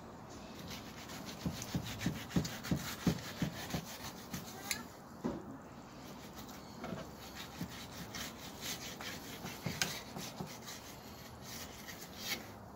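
Fillet knife sawing back and forth between the skin and flesh of a golden trevally fillet on a cutting board: a quick run of short scraping strokes, heaviest in the first few seconds, with a few sharp clicks of the blade on the board.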